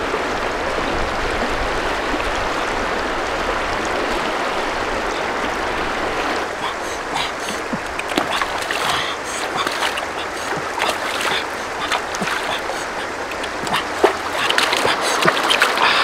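Shallow stream rushing steadily over rocks. From about six seconds in, irregular splashing breaks in as a large fish is grabbed and thrashes in the shallow water, with a further flurry of splashes near the end.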